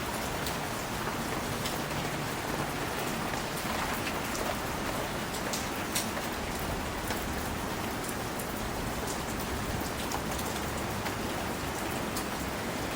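Steady rain falling, with single heavier drops from leaves ticking sharply here and there on top of the even hiss.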